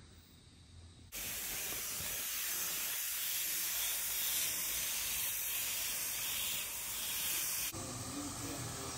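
Gravity-feed compressed-air paint spray gun hissing steadily as it sprays paint onto an axle housing. The hiss starts suddenly about a second in and cuts off near the end.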